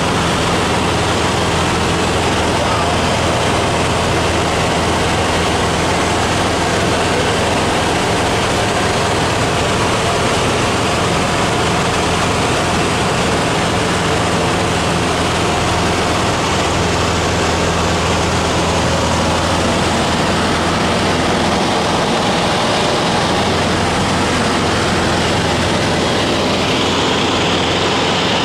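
Cabin noise inside a Cessna 150 in level flight: the steady drone of its Continental O-200 four-cylinder engine and propeller under a constant rush of airflow.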